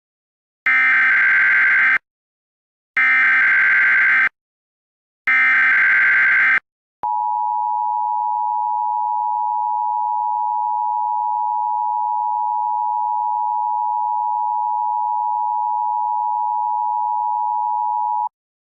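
Emergency Alert System signal: three bursts of SAME digital header data, each about a second and a half with short gaps between, then a steady attention tone held for about eleven seconds that cuts off sharply.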